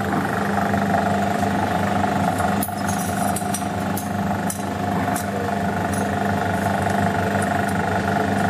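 Refrigerant recovery station's compressor running steadily as it draws refrigerant out of the installation, a constant hum with fixed pitches. A few light clicks and taps come in the middle.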